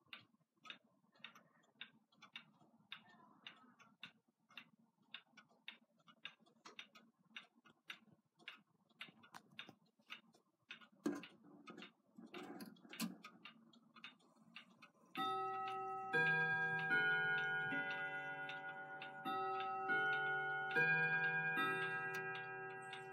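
Colonial grandmother clock ticking steadily at about two ticks a second, then a few knocks and rubs as its minute hand is turned by hand. About fifteen seconds in, the clock starts its half-hour chime: a tune of struck notes that ring on and overlap.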